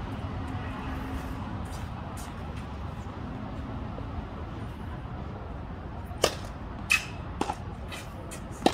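Tennis ball hits in a practice rally on a hard court: four sharp pops in the last few seconds, the loudest a forehand struck close by near the end, over a steady low background rumble.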